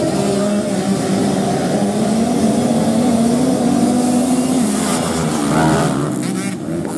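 A pack of grasstrack racing motorcycles revving hard as they race along a dirt track, several engine notes overlapping and rising and falling in pitch. About six seconds in, one bike's note rises sharply as it passes close.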